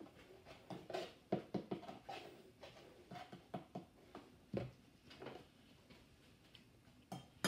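Cardboard box of borax powder being handled and a teaspoon dipped into it, giving scattered soft taps and rustles.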